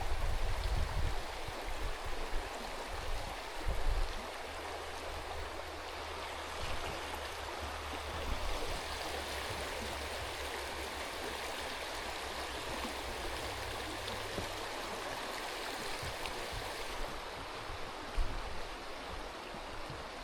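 Mountain river flowing: a steady, even rush of water, with a few low bumps in the first few seconds and again near the end.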